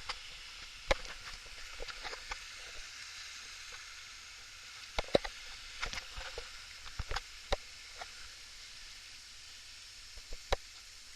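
Steady hiss of rushing river water, with scattered sharp knocks and clicks, the loudest about a second in, around five seconds in and near the end.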